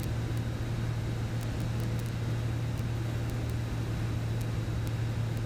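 Single-engine light aircraft's piston engine and propeller droning steadily inside the cockpit, with a strong low hum and no change in pitch, during a descent with carburettor heat on.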